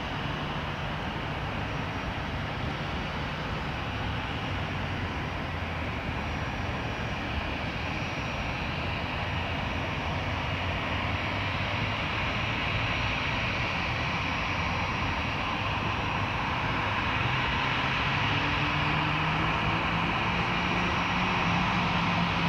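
Airbus A319 jet engines running at taxi power: a steady whine and rush of air that grows gradually louder, with a low hum creeping up in pitch near the end.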